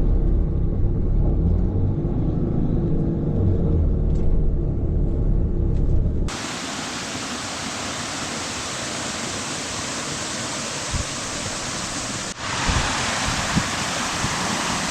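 Low rumble of a vehicle's engine and road noise. About six seconds in it cuts abruptly to a steady rushing of water, which gets a little louder near the end.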